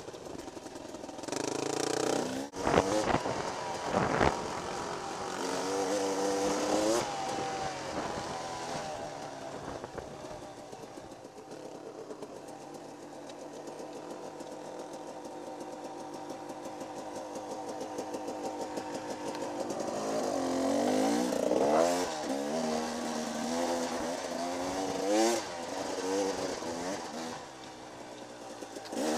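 Dirt bike engine under way on a rough trail, revving up and down through the gears with a rising pitch on each pull. A few sharp knocks sound about two to four seconds in.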